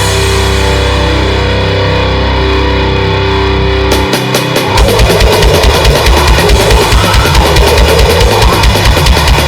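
Loud rock or metal-style music with drums and guitar. For the first four seconds it holds sustained low notes with no beat, then after a brief drop the drums come back in with a fast, even beat.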